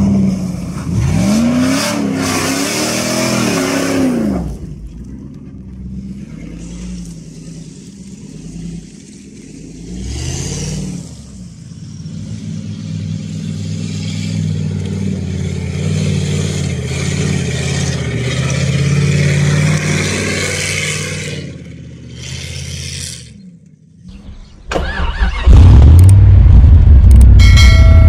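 Jeep Grand Cherokee ZJ 5.2-litre V8 revving hard off-road, its pitch rising and falling several times in the first few seconds, then pulling steadily with the pitch slowly climbing. Near the end, after a brief dip, the exhaust comes in much louder and deeper, heard close up at the tailpipe.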